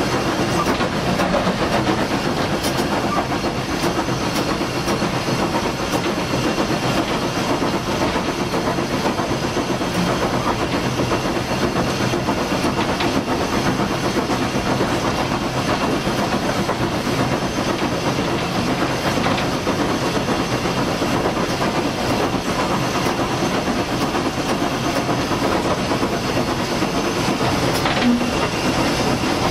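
Cab sound of a 1937 Hunslet industrial steam locomotive working hard on the move: steady steam hiss mixed with the running of the engine and the clatter of the wheels on the rails. A brief louder note near the end.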